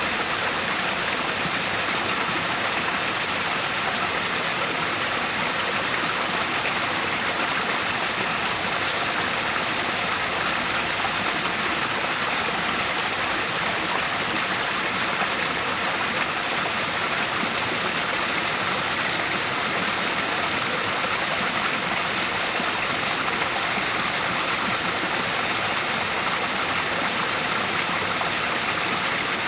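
Water falling and rushing steadily in a natural waterfall: an even, unbroken rush of water with no pauses or changes.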